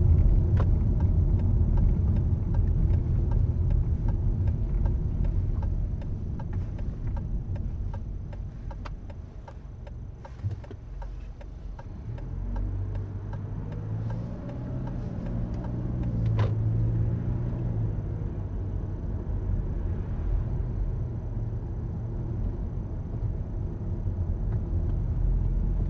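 A car driving, heard from inside the cabin: steady road and engine rumble that eases as the car slows for a left turn, then the engine note rises again as it accelerates away after the turn, with a few faint ticks.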